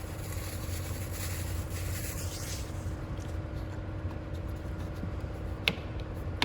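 Hands fitting a new air filter into a walk-behind mower's air cleaner housing: soft rustling and scraping for the first few seconds, then one sharp click near the end, over a steady low shop hum.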